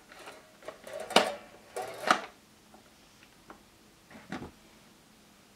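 Hard plastic clacks and knocks from a Play-Doh toy press being worked by hand: two loud ones about one and two seconds in, a softer one near four seconds, then quiet.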